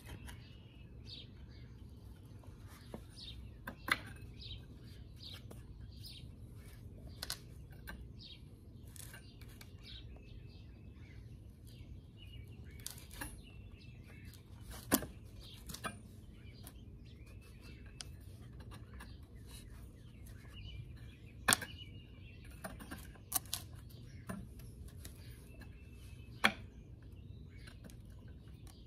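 Scattered light clicks and knocks as wrought-iron balusters and wooden frame boards are handled and pressed together by hand, with birds chirping faintly in the background.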